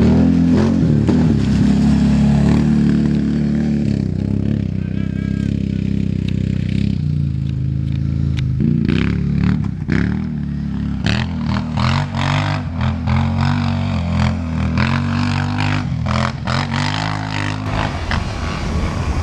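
Off-road motorcycle engines running, then revving up and down again and again through the second half, with sharp cracks over the engine sound.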